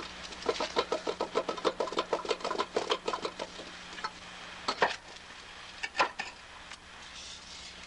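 Split insulated concrete block with an EPS foam insert being handled on a concrete floor. A rapid run of short squeaks lasts about three seconds, then come two sharp knocks about a second apart as the block is lifted and set down.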